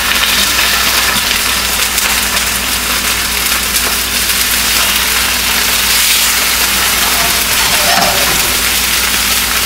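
Striped bass fillets sizzling as they are laid into smoking-hot olive oil in a stainless steel sauté pan: a steady, loud frying hiss.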